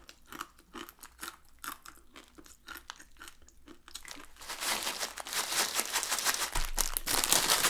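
Dry instant noodles being chewed, with sharp crunches about three times a second. About four seconds in, the plastic noodle packet is crumpled, a loud, continuous crinkling that goes on to the end.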